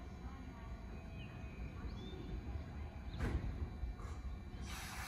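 An E235 series electric train standing at a platform with its equipment humming low and steady, and a few small birds chirping. A sharp noise sounds a little after three seconds, and a steady hiss starts near the end.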